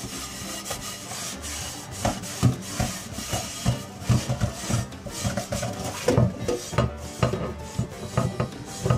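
Coarse salt scrubbed around a Lodge 10.5-inch cast iron skillet with a paper towel: a gritty rasping rub in quick, irregular strokes. The salt is scouring stuck-on, caramelized residue and stripping the pan back down.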